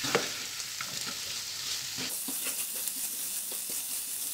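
Chopped onions and spice masala sizzling in oil in a nonstick pan on low-medium heat, with a spatula stirring and scraping through them in small scattered clicks over a steady sizzle.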